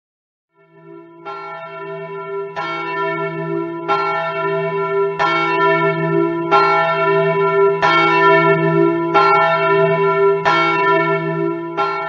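A single church bell tolling at about one stroke every 1.3 seconds, nine strokes at the same pitch, each ringing on into the next.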